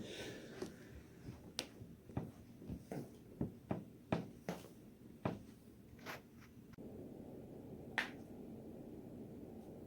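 A person's joints cracking: after a brief rustle, about a dozen sharp separate pops over the first six seconds, then a single louder crack about eight seconds in.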